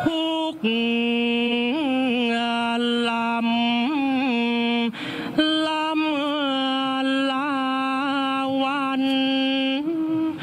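Lead chanter of the Thai royal barge song (kap he ruea), drawing out the syllables in long held notes with wavering ornaments, unaccompanied. The chant breaks briefly for a breath about half a second in and again around five seconds in.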